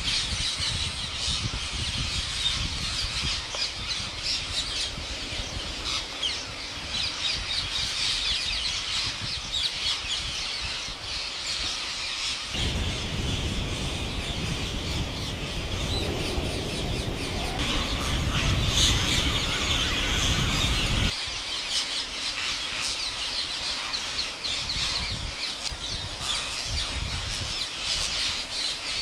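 A flock of parrots squawking and chattering over one another, many calls at once. From about halfway through, a low rumble runs under the calls for several seconds and then cuts off suddenly.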